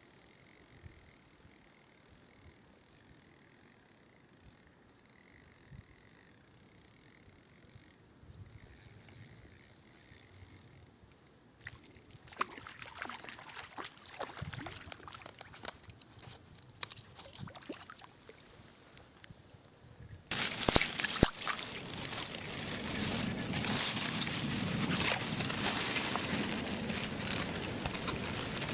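Rushing water of a mountain stream, starting suddenly and loud about two-thirds of the way through. Before it is a quiet stretch, then scattered clicks and rustling.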